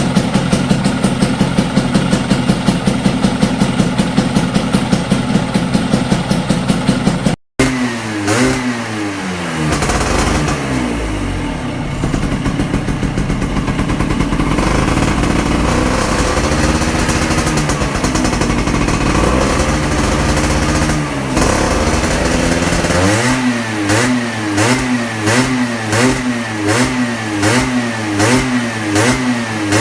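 Vespa Sprint's two-stroke single-cylinder engine, fitted with a PWK carburettor, idling steadily at first. After a brief dropout it is revved up and down, ending in a run of quick, repeated throttle blips.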